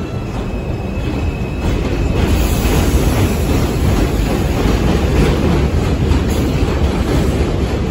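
Stainless-steel New York City subway train running along an elevated steel structure. It makes a heavy rumble with wheels clattering over the rail joints, and grows louder about two seconds in.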